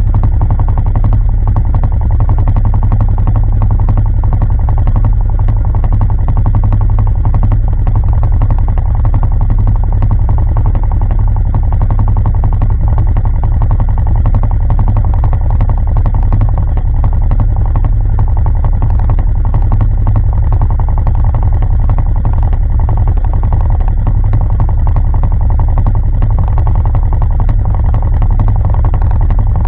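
Off-road vehicle's engine idling steadily, loud and close, with a deep even rumble.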